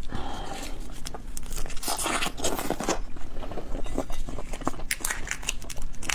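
Close-miked eating of shellfish: crackling crunches and chewing, with a denser stretch of crunching about two to three seconds in.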